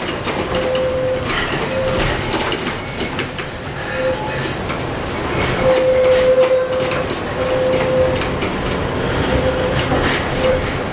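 CKD Tatra tram heard from inside the passenger car while running, rattling and clicking over the track. A steady tone comes and goes several times, held longest around the middle.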